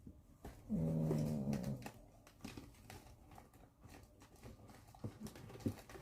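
Light, scattered clicks and taps of small metal lock picks and their cases being handled and searched through. A low hummed 'hmm' comes about a second in.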